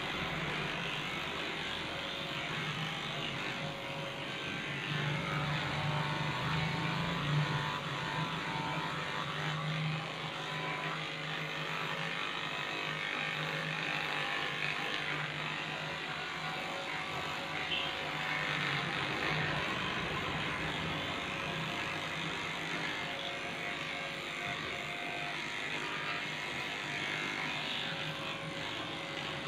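Electric pet grooming clipper running with a steady buzz as it shaves through a dog's matted coat.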